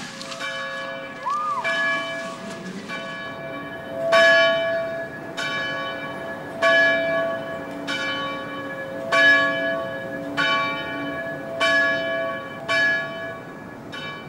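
Church bell ringing in a steady peal, about one stroke every 1.2 seconds, each stroke still ringing into the next, with every other stroke louder.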